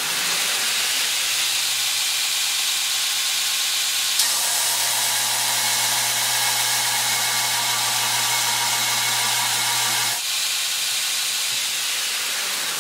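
A 2x72 belt grinder with a 2 hp motor and a 36-grit 3M Cubitron ceramic belt grinding 3/8 inch steel plate hard: a loud, steady grinding hiss over the motor's hum. About ten seconds in the grinding eases off while the belt keeps running.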